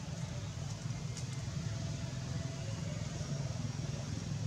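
Steady low rumble of an engine running, with a faint thin tone partway through.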